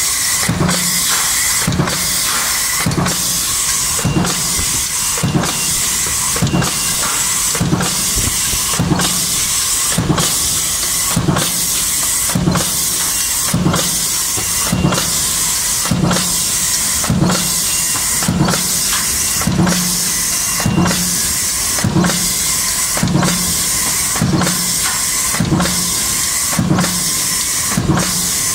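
Mechanical stamping press working a progressive die in continuous strokes, one regular thump about every three-quarters of a second over the press's steady hum and hiss.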